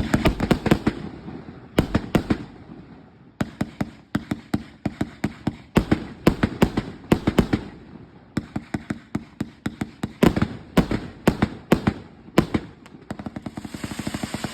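Fireworks going off in rapid volleys of sharp bangs, several a second, with two short lulls, turning into a denser crackling near the end.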